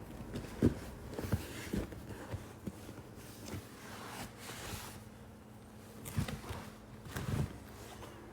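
Scattered soft thumps and knocks at irregular intervals, several in the first three seconds and two louder clusters near the end.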